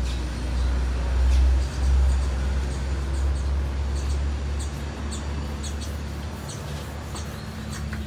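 Paint roller squeaking as it is rolled back and forth over a boat hull, laying on antifouling paint: short, evenly spaced squeaks, about two a second, from about halfway in. Under it a low rumble, loudest in the first two seconds.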